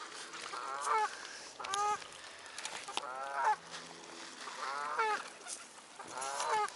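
Geese honking: about five bouts of loud, harsh honks, each call sliding down in pitch.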